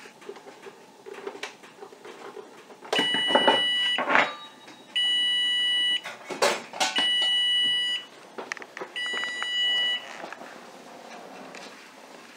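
Whirlpool electric oven's timer going off: four steady electronic beeps, each about a second long and two seconds apart, signalling that the set time has run out. A couple of sharp knocks come between the beeps.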